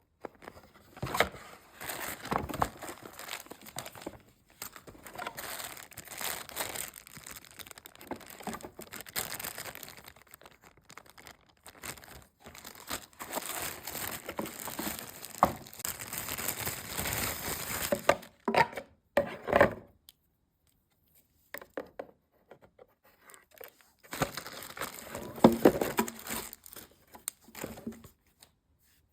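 Irregular crinkling and tearing noises of handled material, coming in uneven bursts and stopping for a few seconds about two-thirds of the way through.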